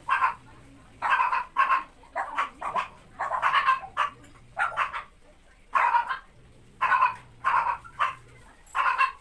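Dog barking over and over, about a dozen short barks in quick, uneven succession.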